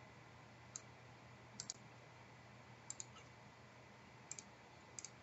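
Faint computer mouse clicks, about half a dozen, several in quick pairs like double-clicks, over near-silent room tone.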